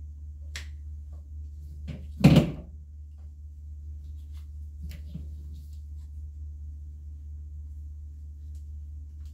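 Garden shears cutting through tough, woody antler reishi stems at the grow block: one loud snap about two seconds in, with a few lighter clicks of the blades and stems.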